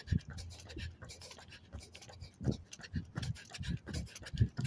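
Irregular rubbing, scratching and soft low thumps of a hand-held phone being jostled while its holder runs.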